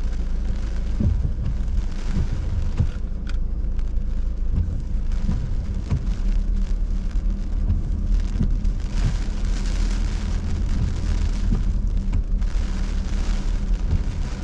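Hurricane rain beating on a car, heard from inside the cabin over a steady low rumble of the car driving, with the rain hiss growing heavier about halfway through.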